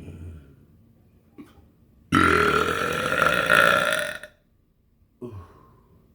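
A person burping loudly: one long burp of about two seconds that starts about two seconds in and rises in pitch, followed near the end by a brief, much quieter low sound.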